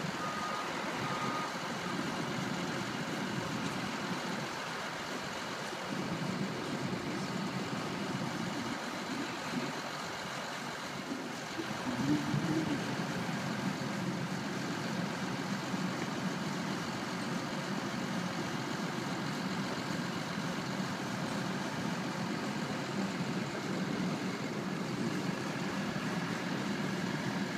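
Street sweeper engine running steadily at idle while its hopper is held raised over a garbage truck, with a few backup-alarm beeps in the first second or so.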